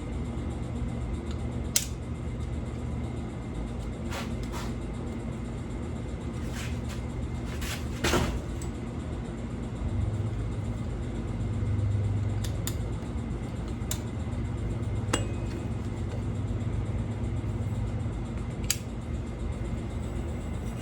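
Scattered sharp metal clicks and clinks, about nine spread irregularly, of hand tools against the fork as the old fork seal is pried loose, over a steady low hum.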